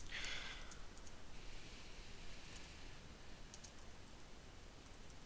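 Faint computer keyboard typing: a few scattered key clicks over a low background hiss.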